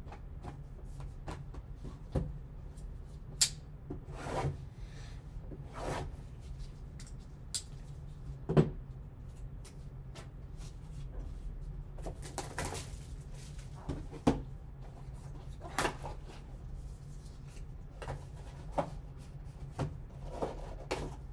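Cardboard box of baseball cards being handled and opened: scattered sharp knocks and taps as it is set down and turned, with short rustles of cardboard and paper, the loudest knock about eight and a half seconds in. A steady low hum runs beneath.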